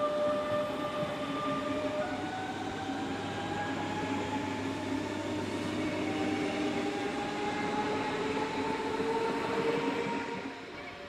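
DB Class 425/426 electric multiple unit accelerating away. Its traction motors give a whine that rises in pitch in steps over the rumble of the running train, fading near the end as the train pulls away.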